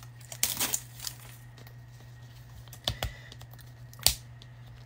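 Plastic wrap crinkling and sharp clicks as a plastic Mini Fashion capsule ball is pried at by hand, stubbornly refusing to open. Crinkling in the first second, then separate clicks about three and four seconds in.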